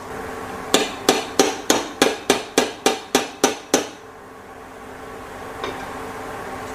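A metal jhara (perforated ladle) tapped about eleven times in quick succession, roughly three sharp metallic taps a second, knocking gram-flour batter through into hot ghee. After the taps stop, the ghee sizzles steadily as the boondi fry.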